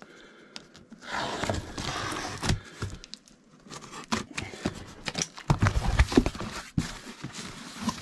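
Packing tape on a cardboard box being slit open with a small blade, a scratchy rasp lasting a second or so, followed by the cardboard flaps being pulled open with rustling and a run of knocks and taps, loudest about halfway through.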